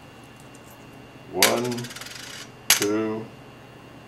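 Two coins dropped one after the other into the metal pan of a small balance scale, each landing with a sharp clink and a short ringing rattle, a little over a second apart.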